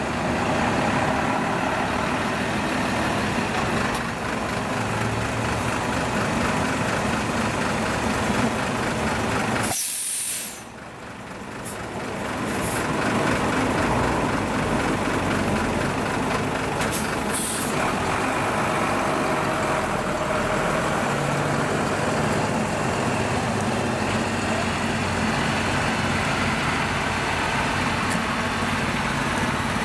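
A convoy of MAN diesel trucks and vans running slowly past, engines steady, with short air-brake hisses about ten seconds in and again a few seconds later.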